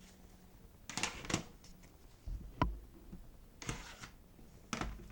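Cards and paper from an album package being handled, with short rustling and sliding sounds. There is a single soft knock about two and a half seconds in.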